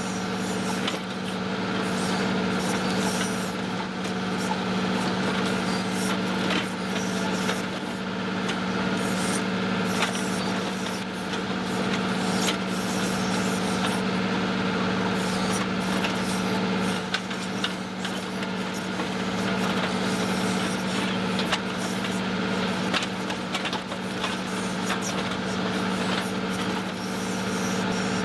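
John Deere 2038R compact tractor's three-cylinder diesel running at a steady throttle as it powers the 270B backhoe, with scattered clanks and scraping from the trenching bucket working in the trench.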